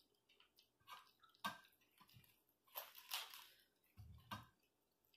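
Faint, scattered crackles and clicks of food being handled at a table as a cabbage leaf is torn apart, with a soft low thump about four seconds in.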